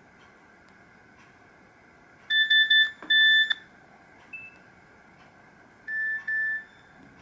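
Nokia 7310 mobile phone playing a short electronic alert tone through its small speaker: a quick run of high beeps ending in a longer one, a single higher blip, then two more beeps.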